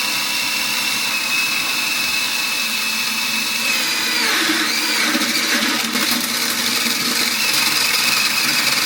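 Lego-built table saw running and cutting into a plastic brick with its plastic Lego blade, a steady high whine over machine noise. About four seconds in the whine drops in pitch and the lower rumble grows rougher as the saw labours. The sound is a sign of trouble in the gear train: the drive gear is stripping its teeth.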